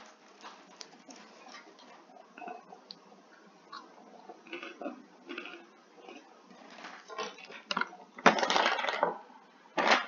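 Small crinkles, clicks and crunches of a snack-puff bag being handled and puffs eaten, with a louder crackling burst a little after eight seconds and a shorter one near the end.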